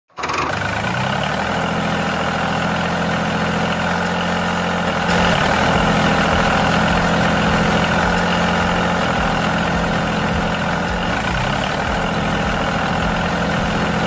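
Tractor engine running with a steady, even drone. Its pitch rises in the first second, and it gets a little louder about five seconds in.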